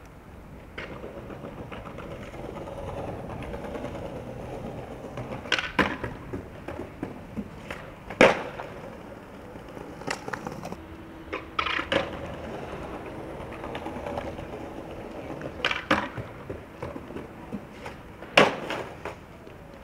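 Skateboard wheels rolling on stone pavement, broken by several sharp clacks of the board hitting the ground and a granite ledge, the loudest about eight seconds in.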